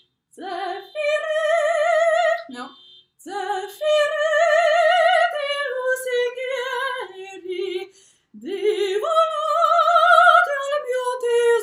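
Operatic soprano voice singing an aria with a wide vibrato on long held notes, in three phrases broken by short pauses for breath.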